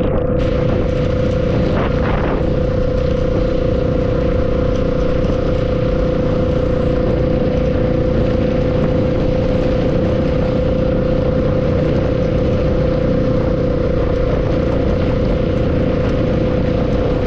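Steady ride noise of a vehicle moving through rain: a constant hum with one unchanging tone, over a dense hiss of rain and wet road.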